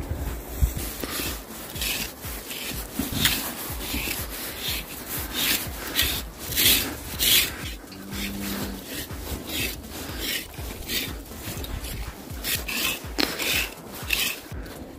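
Grooming brush raked repeatedly through a Highland calf's long shaggy coat, a run of scratchy strokes at roughly two a second.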